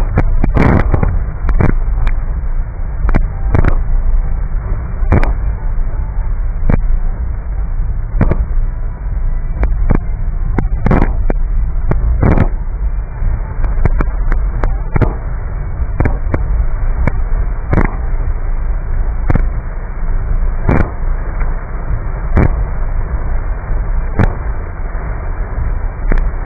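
Inside a car cabin in heavy rain: a steady low rumble of road and engine noise with rain on the car, and the windshield wipers knocking at the end of each sweep about every second and a half.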